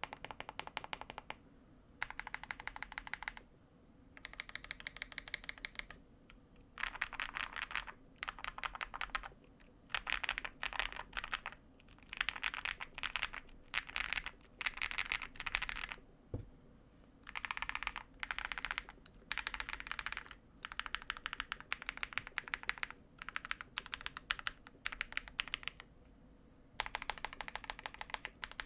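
Typing on a Mammoth75 mechanical keyboard with Prevail Epsilon linear switches (Krytox 105/205-lubed), a PC plate, plate and case foam but no PE foam, and GMK Laser keycaps. Fast runs of keystrokes come in bursts of one to two seconds, broken by short pauses.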